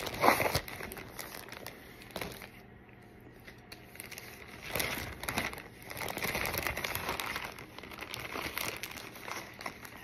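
Tissue paper wrapping crinkling and rustling as a package is unwrapped by hand. There is a sharp burst of crinkling right at the start, a quieter lull a few seconds in, then steady rustling again.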